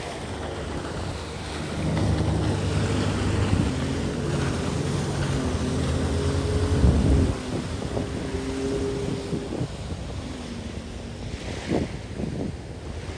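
Personal watercraft engine running under load as it tows an inflatable catamaran past at speed. The engine grows louder, peaks about seven seconds in, then fades, with wind buffeting the microphone and water hissing throughout.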